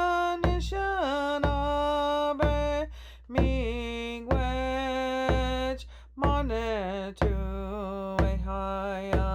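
A woman singing an Indigenous prayer song, one that asks the ancestors to come in and help bless what lies ahead. Her voice holds long notes that slide down between phrases. A hand drum is struck steadily about once a second beneath it.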